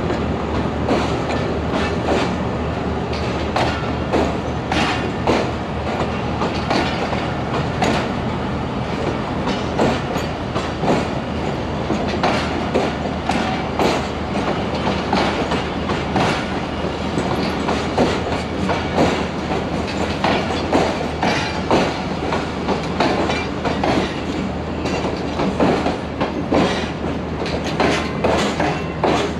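Passenger coaches of the Pakistan Railways Karachi Express rolling past at a platform, their wheels clattering over the rail joints in a steady run of rapid clicks and knocks over a continuous rumble.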